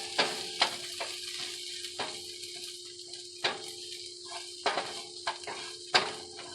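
Cubed chicken sizzling in a frying pan just off the cook: a steady hiss broken by scattered sharp pops and crackles, about seven in all.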